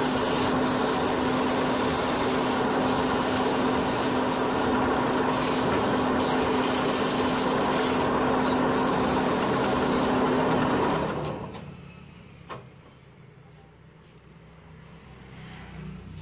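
Sandpaper rubbing against a wooden workpiece spinning on a wood lathe, over the lathe's steady hum. About eleven seconds in the sanding and hum stop, leaving a much quieter background with a single click.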